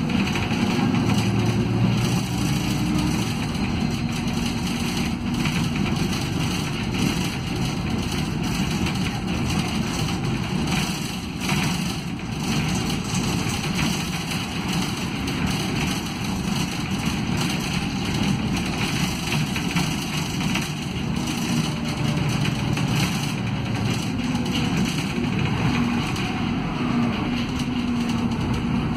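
City bus's diesel engine and ZF Ecomat automatic transmission heard from inside the cabin while driving: in third and then fourth gear with the lockup clutch engaged, then slowing down into second. There is a faint gear whine that falls in pitch as the bus slows.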